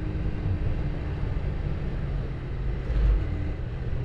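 Yamaha Vixion R's single-cylinder engine running at highway speed, mostly covered by steady wind rush on the action camera's microphone, with a brief louder rumble about three seconds in.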